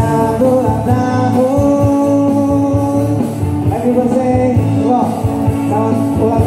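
A song playing: a singer holding long notes over a band.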